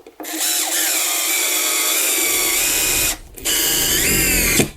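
Power screwdriver running in two bursts, about three seconds and then just over a second, as it drives self-boring screws into the plastic handle mount of a snow shovel. Its pitch shifts upward partway through the second burst.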